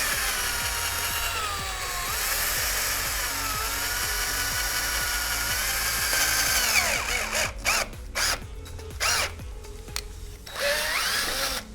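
Power drill running as it drills new mounting holes in metal, where the distro plate's bottom holes fail to line up with the case's rear fan mount. The motor's pitch sags and recovers as the bit bites. In the last few seconds it runs in short stop-start bursts.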